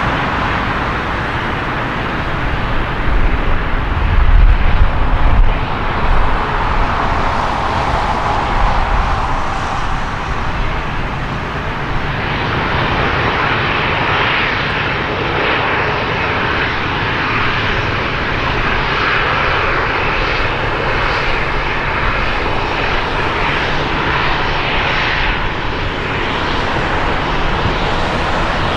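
Jet engines of a Boeing 737 airliner running at taxi power as it rolls past close by: a steady roar and whine. There is a heavier low rumble a few seconds in, and the whine grows stronger from about halfway through as the aircraft draws nearer.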